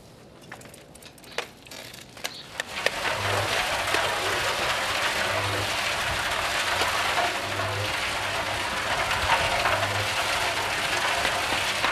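A few scattered clicks, then from about three seconds in, building-site work noise: a steady dense rattling and scraping, with a low thump about every two seconds.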